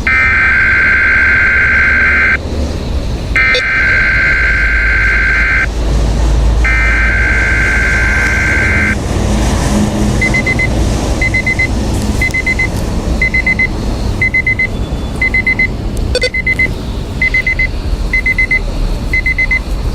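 Three bursts of SAME digital alert-header data from a Weather Radio Canada test broadcast, each a warbling data squawk about two seconds long with about a second between bursts. After them comes a short, high electronic beep repeating about once a second, an alert-equipped weather radio's alarm set off by the test.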